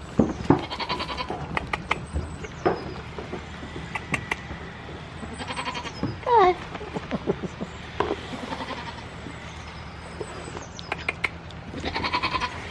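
Goat bleating several times in short, quavering calls, among scattered knocks and clicks.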